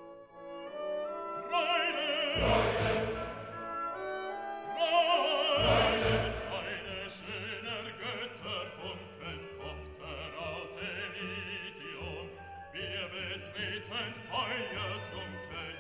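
Background music: an operatic voice singing over an orchestra, with loud held notes that waver in pitch.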